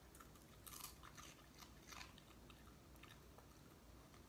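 A Boston terrier chewing a crisp dried pollack strip: faint, scattered crunches of the treat between its teeth, most of them in the first two seconds.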